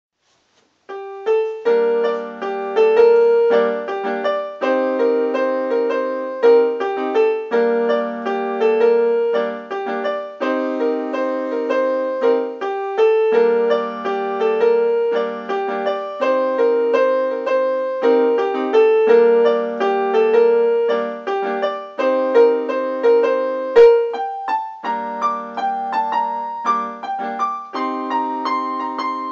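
Yamaha electronic keyboard played with a piano sound: a repeating hip-hop riff in the right hand over held left-hand chords that change about every three seconds. The playing starts about a second in, and there is one short knock and a brief pause late on.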